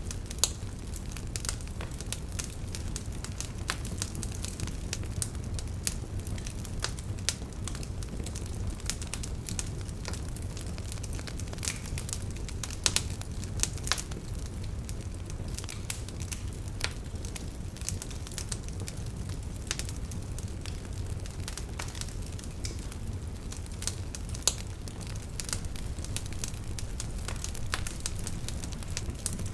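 Fire crackling, with irregular sharp pops over a steady low rumble.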